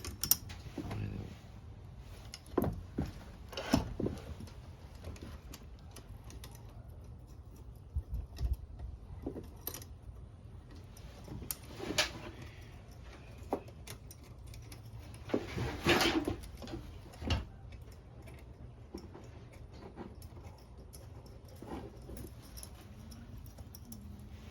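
Scattered metallic clicks, clinks and scrapes of a 10 mm wrench working the bolts on a hedge trimmer's cutter bar, with a busier stretch of scraping about two-thirds of the way in.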